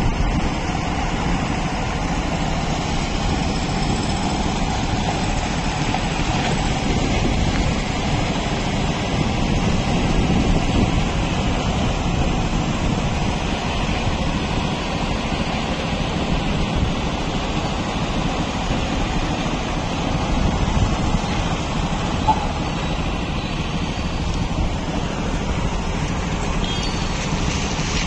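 Heavy container truck's diesel engine running at low speed as the lorry crawls over a potholed road, mixed with steady wind noise on the microphone.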